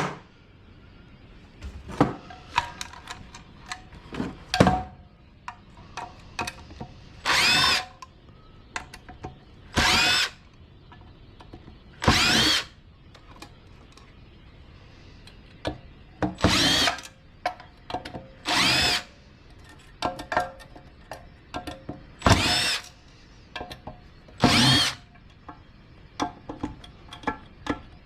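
Cordless drill-driver whirring in about seven short bursts, backing out screws while a centrifuge is dismantled. Small clicks and clinks of parts and screws being handled come between the bursts.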